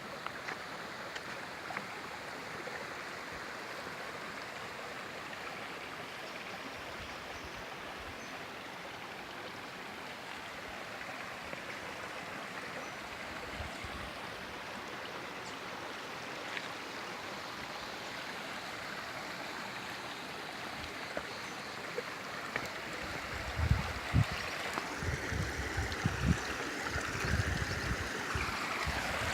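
Steady rush of running stream water. From about two-thirds of the way in, irregular low thumps and rumbles join it, and the water grows louder near the end.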